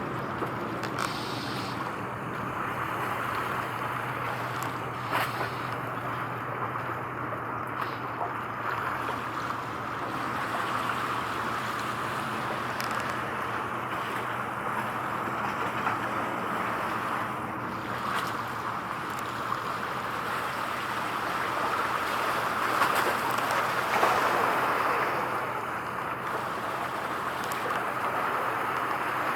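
Steady outdoor wash of wind and water with a low, even hum underneath; no distinct events stand out.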